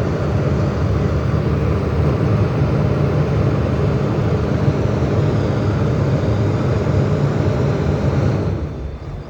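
Heavy diesel engine running hard under load, a steady low drone that drops away near the end.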